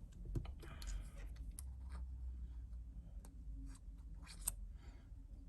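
Light clicks and short scrapes of small parts and tools being handled while an iPhone 7 home button is fitted onto a replacement screen, over a faint low hum. The sharpest click comes about four and a half seconds in.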